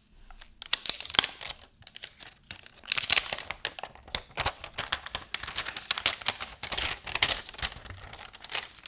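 Thin clear plastic protective film being peeled off the back panel of a Samsung Galaxy A54 phone, crackling and crinkling in irregular bursts. The crackling is loudest about three seconds in.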